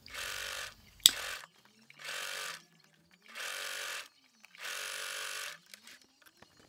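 Electric sewing machine running in four short bursts of stitching, each under a second, while a topstitch is sewn along the outer lining. A single sharp click sounds about a second in.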